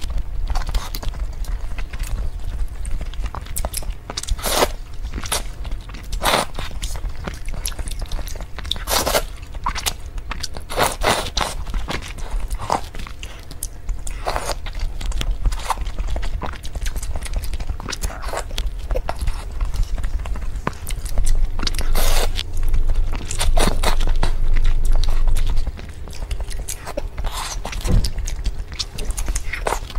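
Close-miked eating sounds: sips and slurps of broth from a spoon, then biting and chewing boiled eggs, with irregular short wet smacks and sips over a steady low hum.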